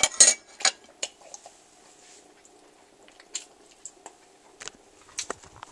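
A few sharp clicks and taps in the first second as a hand works at a plate of food, then faint scattered clicks and soft mouth noises of someone chewing a bite of hot pork chop.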